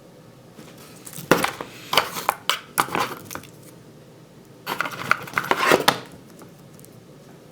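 Modular power-supply cables being handled, their plastic connectors clicking and clacking against each other and the table in two bouts of rapid clatter, the first about a second in and the second near the middle.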